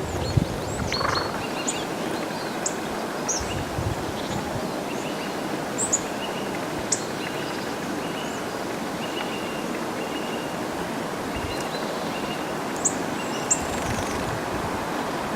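Small tits calling: scattered sharp, high chips and short thin notes, over a steady rushing background noise.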